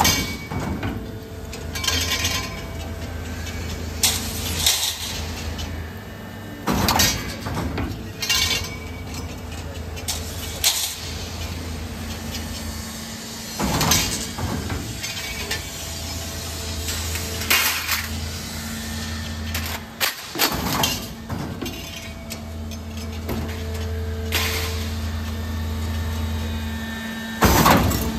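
Steel roll forming machine running with a steady low hum from its drive, broken every few seconds by sharp metallic clanks from the hydraulic punching and cut-off press.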